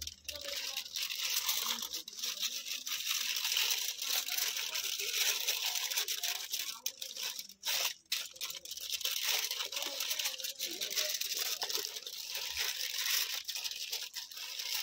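Aluminium kitchen foil crinkling and rustling as it is unrolled from the roll and crumpled and folded by hand, a continuous crackle with a brief pause about halfway through.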